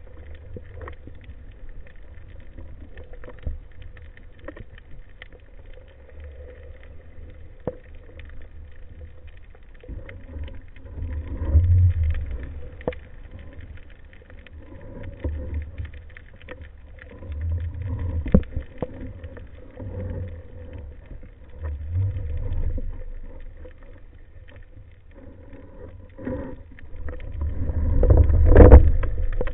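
Underwater ambience in shallow water under a rough sea: a low rumble of the swell that rises and falls every few seconds and builds near the end, with scattered sharp clicks.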